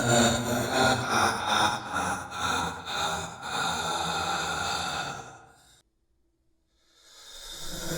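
Macabre, evil laugh altered with sound effects, coming in breathy pulses and trailing off about six seconds in. After a second of silence, another effect-laden version of the laugh begins to swell near the end.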